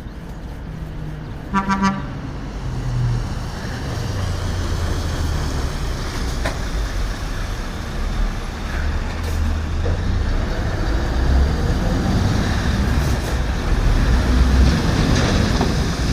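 A short truck horn toot about a second and a half in, then a heavy truck's diesel engine running loudly past, getting louder toward the end.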